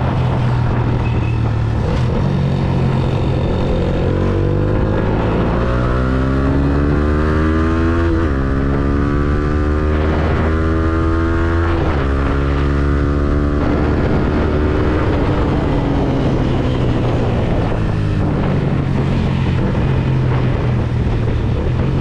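Yamaha Sniper 150's single-cylinder four-stroke engine accelerating through the gears. The pitch climbs, then drops back at three upshifts about four, six and eight seconds in. Near the middle the engine eases off and winds down as the bike slows.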